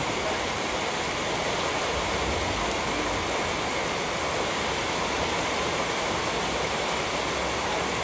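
Rain falling steadily, an even hiss that holds at the same level throughout.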